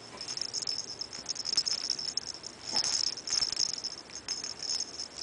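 Baby's plastic rattle toy being shaken, rattling and jingling in uneven bursts.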